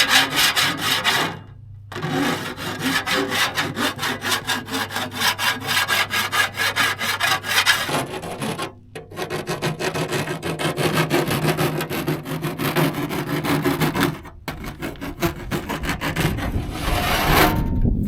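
Hand file rasping along the edge of an aluminum sheet in quick repeated strokes, deburring and smoothing the cut edge. The strokes stop briefly three times.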